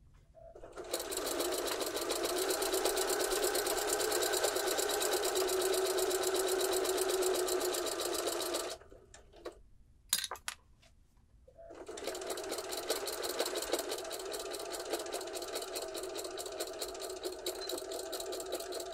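Computerized home sewing machine stitching a curved seam through two layers of cotton fabric at a steady speed for about eight seconds. It stops for about three seconds, with a few light clicks, then sews again, a little quieter.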